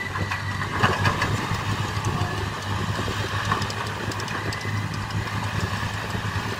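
Heavy diesel engines of a Caterpillar 320B excavator and a stationary dump truck running steadily at a low hum. A few sharp knocks come about a second in.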